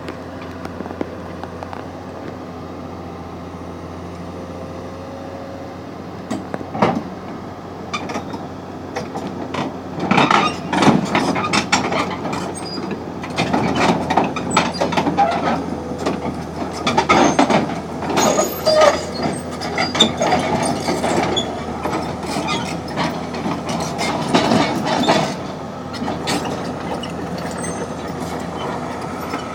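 Excavator engine running steadily while its steel tracks clank, rattle and squeak as the machine crawls off the truck. The clanking starts about a quarter of the way in, is loudest and busiest through the middle, and eases off near the end, leaving the engine running.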